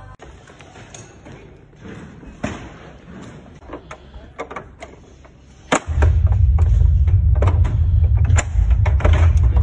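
Irregular metal knocks and clicks of LED video-wall panels being handled and seated onto a steel frame. A loud low rumble comes in about six seconds in and carries on to the end.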